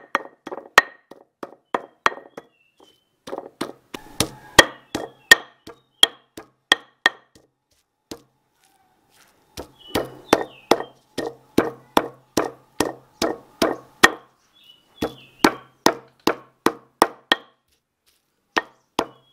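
Stone pestle pounding grated young coconut with a roasted chili and spice paste on a stone mortar (ulekan and cobek), crushing the coconut into the seasoning. Sharp knocks come about twice a second in runs, broken by brief pauses.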